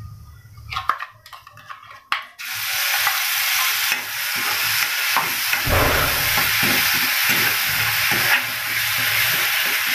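A few sharp clicks of a spoon against a steel kadhai, then about two seconds in a sudden loud, steady sizzle as wet ground green masala paste hits hot oil and is stirred and fried.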